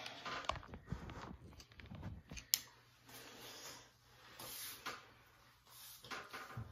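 Handling noise and knocks as a phone is moved and set in place, with one sharp click about two and a half seconds in. Then comes faint rustling as curly hair is brushed.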